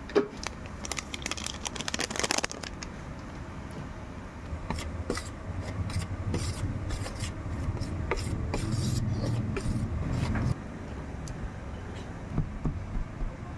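Metal utensil stirring flour in a glass baking dish, scraping and clicking against the glass in repeated short strokes, over a low hum that cuts off suddenly about ten seconds in.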